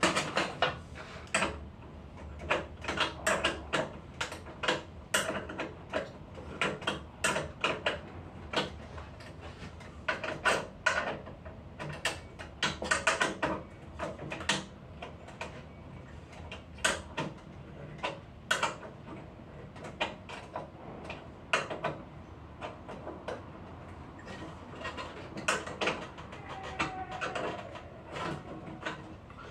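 Irregular clicks, taps and rattles of hand tools and internal parts of a Lavazza Espresso Point EP 2100 capsule coffee machine being dismantled by hand.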